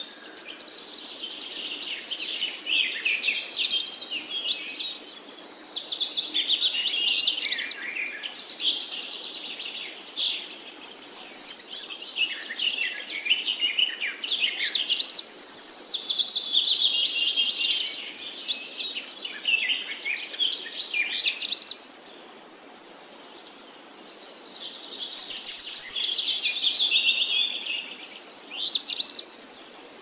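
Busy chorus of rainforest birds: many quick chirps and whistled, falling trills overlapping, rising and easing off in waves.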